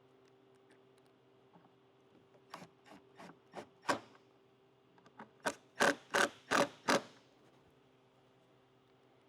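A speaker being fastened into a motorcycle fairing speaker pod: short ratcheting, scraping strokes of a hand tool, about five quicker ones, then four louder ones a second or so later, over a faint steady hum.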